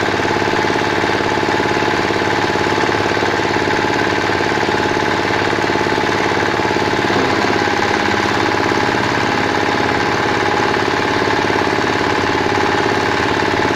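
Single-cylinder horizontal diesel engine of a compost shredder running steadily at a constant speed, with a rapid, even knocking beat, driving the shredder drum by belt.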